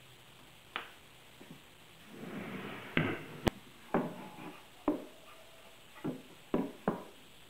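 Knocks and clacks of a shop-made circular saw guide base, plywood with oak strips and aluminium angle rails, being handled and set down on a plywood work table. There is a short scrape about two seconds in, a sharp click in the middle, and a run of separate knocks after it.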